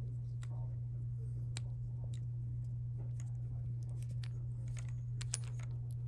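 Small, irregular clicks and taps of the plastic and metal parts of an IP67 RJ45 connector being handled and pushed together by hand, over a steady low hum.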